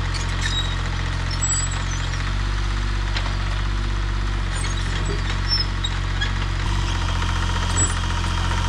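Mini excavator's diesel engine running steadily as the machine tracks along, its note shifting a little about two seconds in and again near seven seconds.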